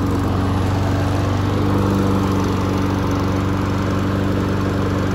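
Honda HRN216VKA walk-behind lawn mower's single-cylinder engine running steadily at a constant speed.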